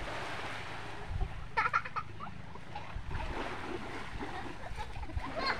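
Small waves washing up onto a muddy shore and splashing around children sitting in the shallows, with a child's voice heard briefly about a second and a half in.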